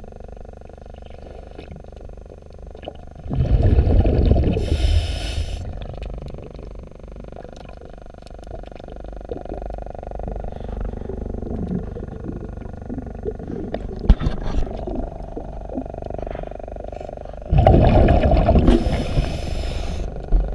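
A diver's regulator exhaust bubbles rushing twice, each for about two seconds, heard underwater over a steady low rumble, with a few sharp clicks in between.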